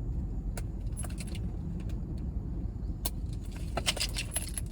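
Steady low rumble inside a car, with scattered light clicks and jingles of small objects being handled.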